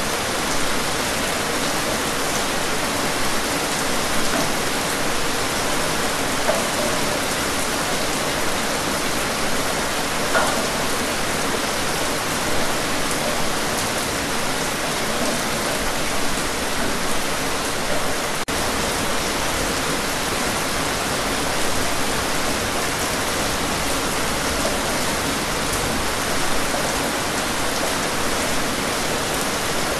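Steady rainfall: an even, dense hiss of rain with scattered individual drop taps, broken once by a momentary dropout about 18 seconds in.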